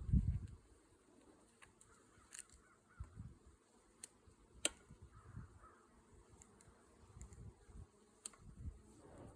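Honeybees buzzing around an open hive, with low bumps and a few sharp clicks as hive equipment is handled; the loudest thump comes right at the start.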